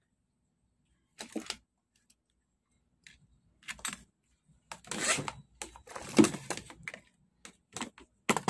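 Irregular clicks and clatter of small hand tools, a soldering iron and tweezers, handled against the TV's metal back chassis and circuit board. They come in scattered bursts, busiest about five to seven seconds in.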